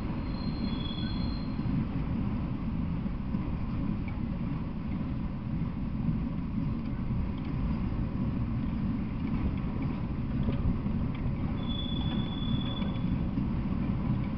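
Freight train of autorack cars rolling past, a steady low rumble with faint clicks from the wheels on the rails. Two brief high thin tones, one near the start and one near the end.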